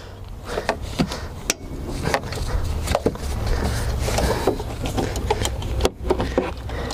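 Irregular metallic clicks and knocks of hand tools loosening the bolts that hold the EGR delta pressure sensor on a DD13 diesel engine, over a steady low rumble.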